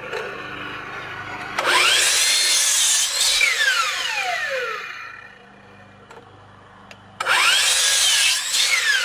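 Miter saw making two cuts through the angled ends of 2x4 deck spindles: each time the motor whines up, the blade cuts the wood, and the whine falls away as the blade spins down. The second cut starts about seven seconds in.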